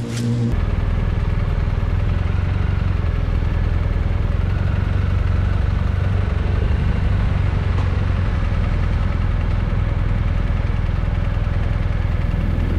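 Motorcycle engine running at a steady, unchanging speed. It cuts in abruptly about half a second in.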